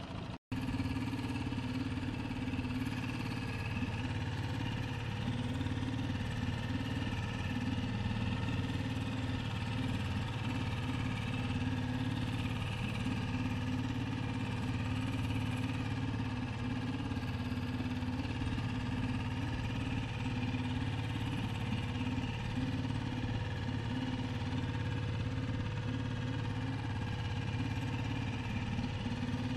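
Small Honda four-stroke outboard motor running steadily at slow trolling speed, its low hum unchanging throughout.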